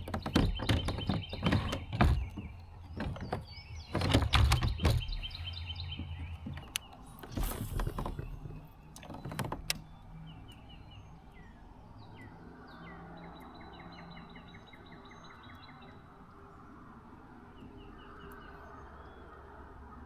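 Small birds singing, with repeated series of short, quick chirps. Several sharp knocks and thumps fall in the first few seconds, over a low rumble that fades out about a third of the way in.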